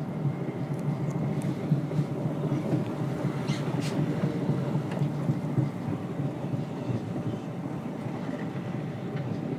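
Chicago 'L' Red Line train running along the elevated tracks, a steady low rumble heard from inside the car.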